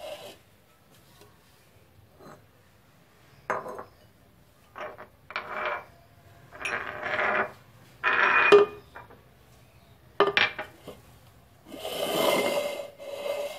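Glass and ceramic bowls being moved about and set down on a countertop: a series of clinks, knocks and scrapes, with a longer scrape and faint ring near the end.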